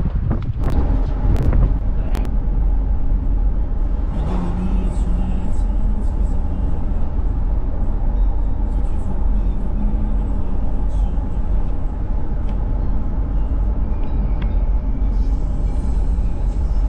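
Steady low rumble of a car driving on a road, heard from inside the vehicle, with faint background music over it.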